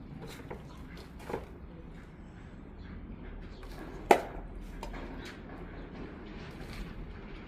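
Scattered light clinks and knocks of tools and engine parts being handled during engine repair, with one sharp, loud knock about four seconds in.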